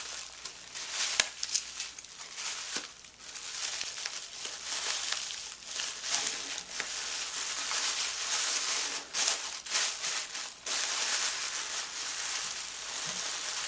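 Packing material being crinkled and pulled apart by hand while a lock is unwrapped from its package: a continuous dense crackle with many small crisp clicks.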